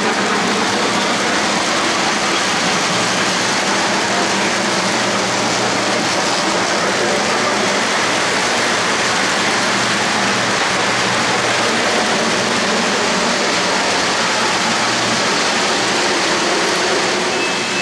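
O-gauge model freight cars rolling past on three-rail track, a steady rushing clatter of metal wheels on the rails.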